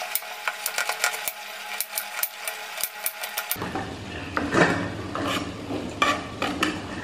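Kitchen knife cutting a peeled potato into sticks on a wooden chopping board: a quick run of knife taps against the board, then slower, more spaced cuts from about three and a half seconds in.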